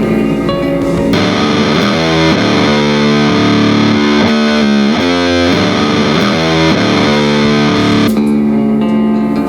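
Instrumental track at 100 bpm: a heavily distorted, effects-laden guitar comes in about a second in and plays a run of notes that step down and back up, then drops back to a thinner, cleaner guitar part near the end.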